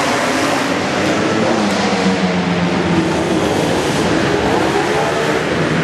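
Several flat-track racing motorcycles running hard around a dirt oval, their engine notes overlapping. The pitch falls and rises as the riders back off and get back on the throttle.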